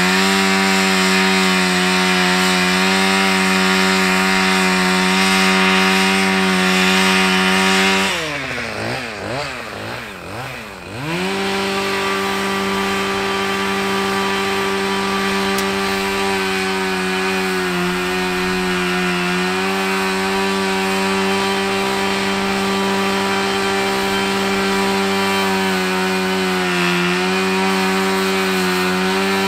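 Petrol engine of the Loncin G420 pressure washer running steadily at high speed under the pump's load. About eight seconds in its speed drops and wavers up and down for about three seconds, then it settles back to a steady run.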